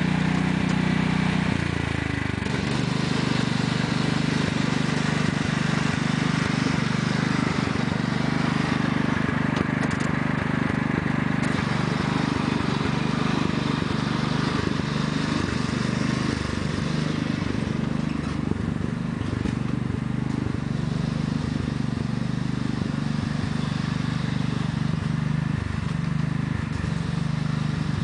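1993 Sears Craftsman lawn tractor's 14 hp Kohler single-cylinder engine running steadily at high revs as the tractor is driven, with a slight change in its note about a second and a half in.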